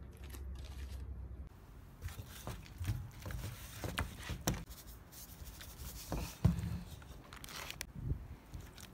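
Hands rubbing salt and pepper into a whole raw chicken in an aluminium pan: irregular wet rubs and soft slaps, the loudest a little past the middle.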